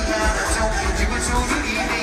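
Live pop concert music heard from the crowd, with a heavy pulsing bass.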